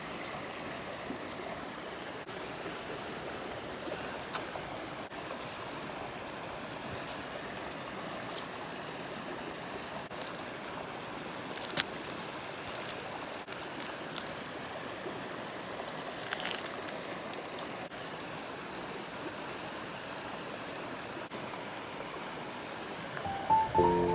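River water flowing steadily, with a few isolated sharp clicks now and then, the loudest about halfway through.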